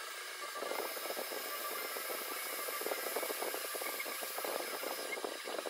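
Milling machine spindle running with a drill bit cutting into a metal model-engine head: a steady whine of a few held tones over a dense scratchy rasp from the cut.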